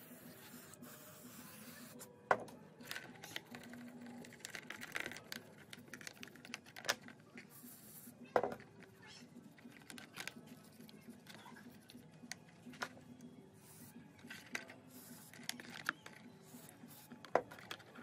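Bristle paintbrush scrubbing a Roomba's wiring harness and plastic sensor parts in a plastic tray: a faint scratchy rustle with irregular sharp clicks and rattles as the small plastic parts knock about, a dozen or so louder knocks spread through.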